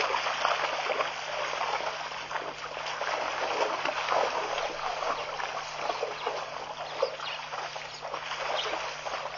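Irregular splashing and sloshing of water as wildebeest wade and drink at the edge of a waterhole, over a faint steady low hum.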